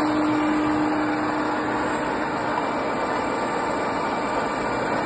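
1980 Wotan horizontal boring mill running: a steady mechanical drone of its drive and gearing, with a steady hum that fades out about halfway through.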